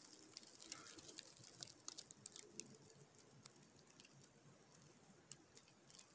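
Near silence, with faint scattered ticks and light rustles, more of them in the first half.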